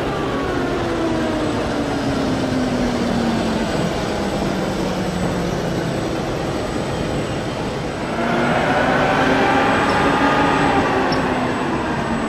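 A steam locomotive pulling away on station tracks: steady rail noise, with a faint whine falling slowly in pitch over the first several seconds. About eight seconds in it gets louder as a layer of higher whining tones comes in.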